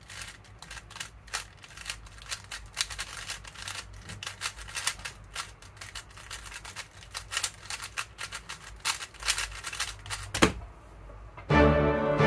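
GAN 12 Maglev 3x3 speedcube being turned fast during a timed solve: a quick, uneven stream of plastic clicks and clacks with short pauses between turn sequences. About ten and a half seconds in there is one louder knock.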